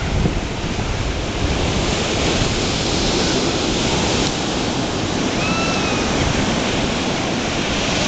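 Ocean surf breaking on a sandy beach, a steady wash of noise, mixed with wind buffeting the microphone.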